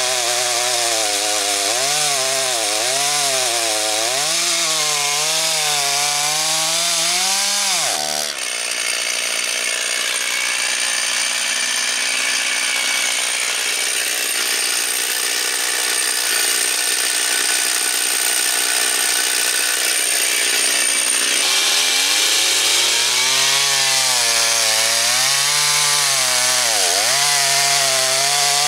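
Gas chainsaw cross-cutting a large log, its engine note wavering up and down as the chain bogs and recovers in the wood. About eight seconds in, the low engine note drops out and a higher, thinner whine takes over for roughly thirteen seconds, then the wavering cutting sound returns. These are test cuts with a bar that pulls the cut crooked to the left.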